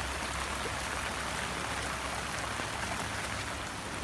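Steady monsoon rain falling: an even hiss with a low rumble underneath.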